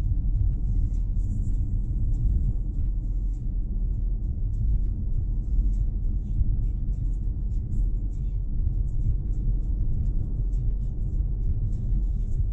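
Steady low rumble of tyre and engine noise inside a moving car's cabin, with faint scattered ticks high up.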